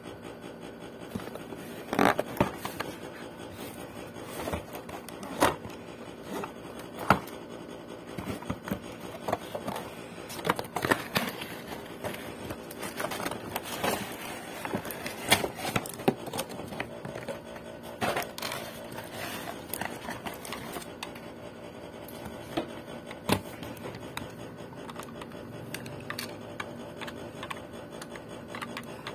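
Cardboard packaging of a toy car being handled and opened by hand: irregular scrapes, rustles and sharp taps of cardboard and plastic, the sharpest clicks coming every few seconds.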